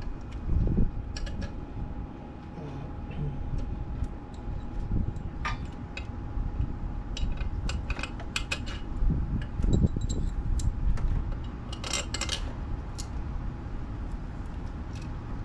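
Hand tools and metal engine parts clicking and clinking in irregular clusters as hands work in an engine bay, over a steady low rumble.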